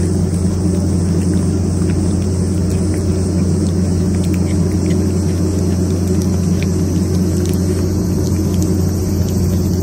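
A loud, steady low hum like a running engine, unchanging throughout. Faint ticks of a cat chewing wet food from a metal bowl sound over it.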